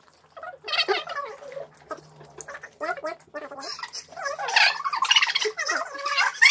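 Table conversation played back fast-forward: several people's voices sped up into high-pitched, squeaky chatter.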